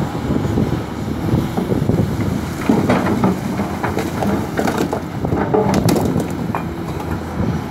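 Long-reach excavator's diesel engine running steadily while its bucket dumps mud and stones onto a rock embankment, with crunching and clattering of rock on rock, busiest about three to six seconds in.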